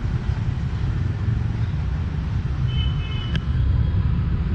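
Steady low rumble of city street traffic, with a short high beep about three seconds in.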